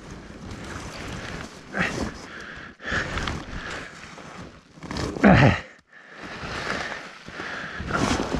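Snowmobile riding through snow: a noisy engine-and-track sound with wind on the microphone. It surges louder about two and five seconds in and cuts back briefly in between.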